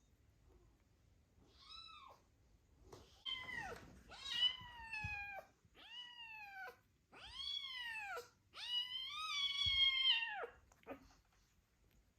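A cat meowing repeatedly: about five meows, each rising then falling in pitch, the later ones longer.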